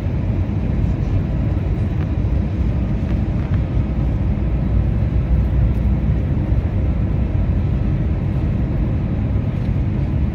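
Airbus A320 cabin noise on the approach: a steady low rumble of the engines and rushing air, with a faint steady hum above it.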